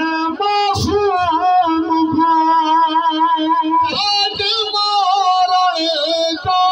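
A man's voice chanting a noha, the Shia mourning lament, without instruments: long held, wavering notes with sliding turns between them.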